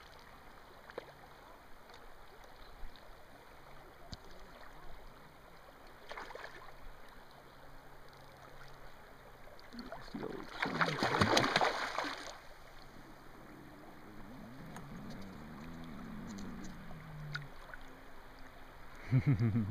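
Water running and lapping at the shore, with a loud splashing burst about ten seconds in, lasting a second or two, as a hooked salmon thrashes at the surface.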